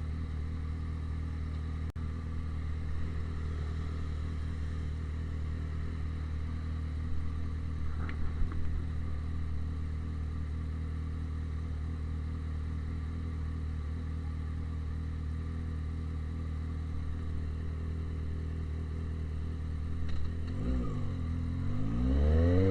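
Yamaha XJ6's 600 cc inline-four, running a straight-pipe exhaust, idling steadily; near the end the revs drop briefly and then climb sharply, the pitch rising as the engine is opened up.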